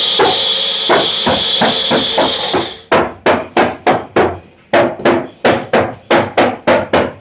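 Small bullet-style personal blender running with a high whine while its cup is pressed down, cutting off about three seconds in. A steady knocking beat, about three knocks a second, runs throughout and is the loudest sound once the motor stops.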